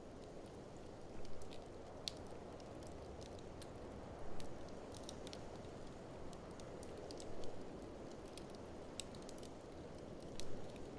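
Wood fire crackling in an open fireplace: many sharp pops and snaps over a steady low rush, with louder flurries of crackling about every three seconds.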